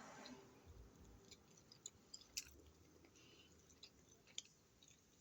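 Faint chewing with soft wet mouth clicks, and a few sharper clicks scattered through, the loudest about two and a half seconds in.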